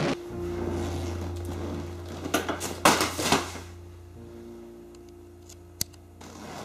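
A steady low hum, with a cluster of loud clattering knocks about two and a half to three and a half seconds in and one sharp click near the end.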